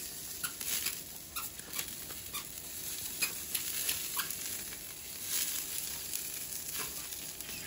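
Meat sizzling on a charcoal grill grate, a steady hiss with fat crackling and popping at irregular moments.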